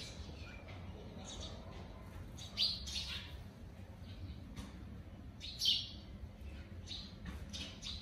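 Sparrows chirping: short, sharp chirps come irregularly, the loudest about two and a half seconds in and again near six seconds, over a low steady rumble.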